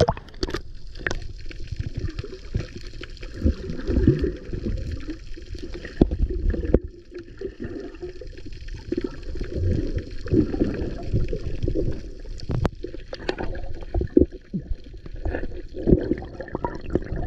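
Water sloshing and gurgling in irregular surges, with a few sharp knocks.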